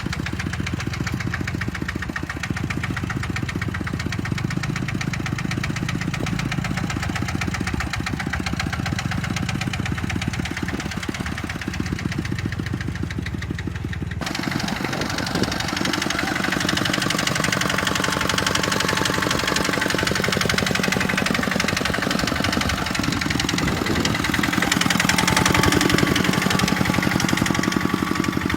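Tractor engine running steadily with a rapid, even firing beat. About halfway through the sound switches abruptly to a louder, noisier engine run with more high-pitched clatter.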